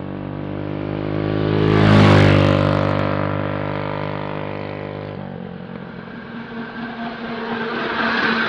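Electric go-kart passing by, its motor whining, loudest about two seconds in and then fading away. A second kart comes up, loudest near the end.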